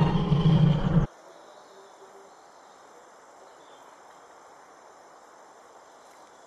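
A loud rumbling noise cuts off abruptly about a second in, at an edit in the soundtrack, leaving a faint steady hiss with a few thin high tones, like distant insect ambience.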